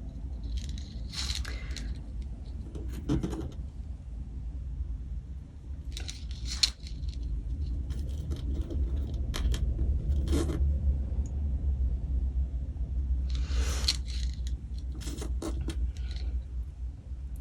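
Small plastic beads clicking and rattling as they are handled and threaded, in several short clusters of clicks over a steady low hum.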